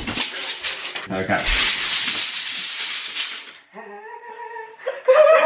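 Steel tape measure blade rattling as it is whipped out and retracts: a long, loud, hissing rattle that cuts off about three and a half seconds in. A drawn-out held voice follows.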